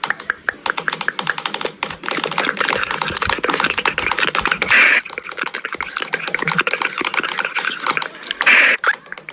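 Rapid, irregular clicking, about seven or eight clicks a second, like fast typing, over a hissing noise. The hiss swells into a short, louder burst twice, about halfway through and near the end.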